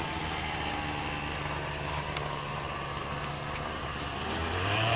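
Outdoor air-conditioner condensing units running: a steady low hum with the rush of air from the condenser fan, growing louder near the end.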